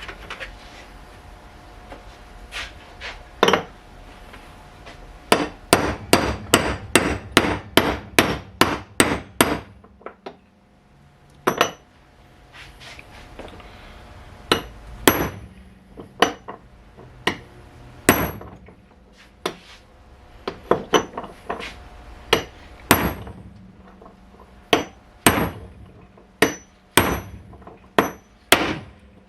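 Hammer blows on a metal bearing knocker, driving the old wheel bearings out of a Porsche 924 front hub from the backside. A quick run of strikes, about three a second, gives way to slower single blows, each with a short metallic ring.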